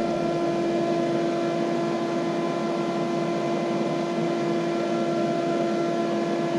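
Mosquito Magnet Patriot Plus trap's fan running steadily, an even rush of air with a constant motor hum.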